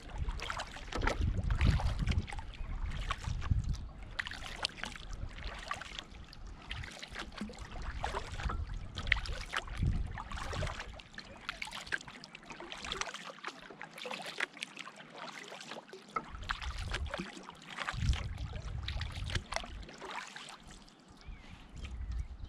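Canoe paddle strokes in the water, with irregular splashing and dripping from the blade. A low wind rumble on the microphone comes and goes, dropping out for a few seconds midway.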